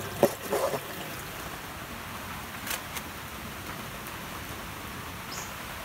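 Heavy rain pouring down as a steady, even hiss, with a few brief clicks.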